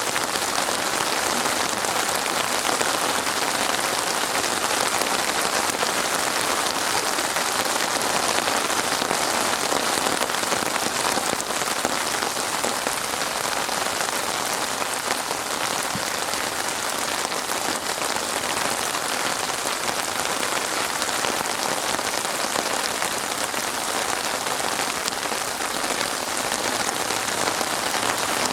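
Steady rain falling on a surface, an even hiss of many drops with no thunder or other sounds.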